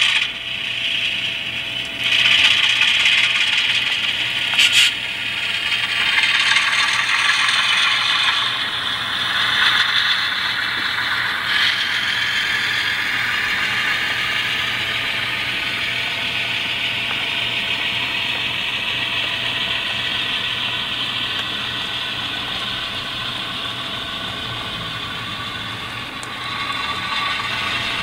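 HO scale model freight train running along the layout: the wheels of the cars clatter steadily over the track, over the Alco C425 locomotive's sound-decoder diesel sound. A few sharp clicks stand out, about five seconds in and again near twelve seconds.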